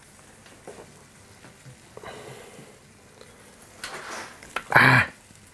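Cooking utensils scrape and tap faintly on a baking tray and its parchment paper as roasted vegetables are lifted off it. Near the end there is a brief, louder burst of sound.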